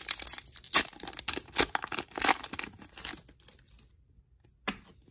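Foil Pokémon TCG booster pack wrapper being torn open by hand: rapid crinkling and tearing that stops about three seconds in, followed by one short click near the end.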